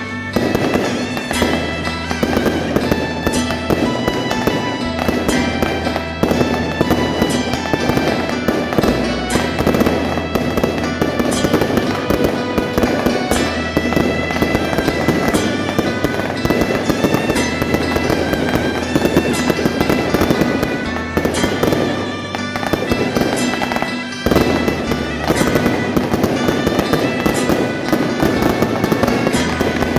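Dense, continuous crackling of a long string of firecrackers, with music playing underneath. The crackle dips briefly near the end, then resumes.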